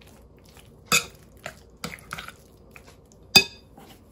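Metal spoon clinking against a ceramic bowl while stirring a thick mayo mixture: several sharp clinks about a second apart, the loudest near the end with a brief ring.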